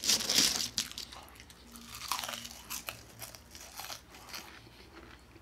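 Close-miked eating of French fries: crunching and chewing. It is loudest in the first second and then trails off into smaller crunches.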